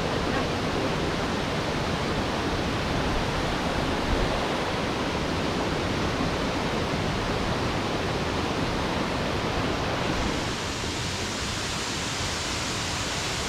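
Steady rush of water from a waterfall. About ten seconds in, the sound turns thinner and more hissy.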